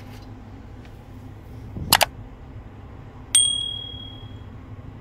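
Subscribe-button sound effect: a quick double mouse click about two seconds in, then a bright bell ding about a second later that rings and fades, over a low steady background hum.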